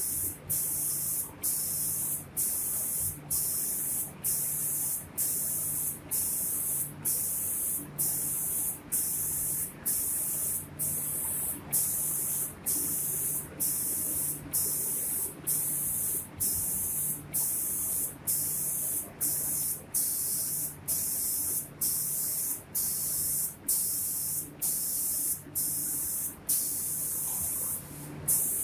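Automatic spray guns of a door painting machine hissing in short, evenly repeated bursts, about three every two seconds, as the guns switch on and off on each pass, over a low machine hum.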